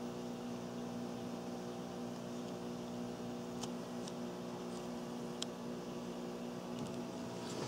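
Steady low machine hum made of several steady tones, with a few faint ticks near the middle.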